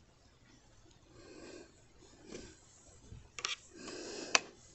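Soft breathing close to the microphone, with a few sharp clicks; the loudest click comes near the end.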